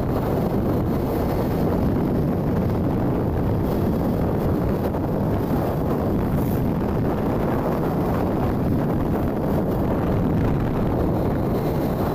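Steady wind noise buffeting the microphone of a moving open vehicle, with road and engine noise underneath.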